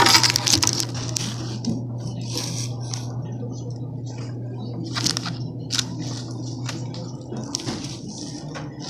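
Keys jingling as they are put down, then a plastic carrier bag rustling and crinkling in short spells as it is handled, over a steady low hum that stops near the end.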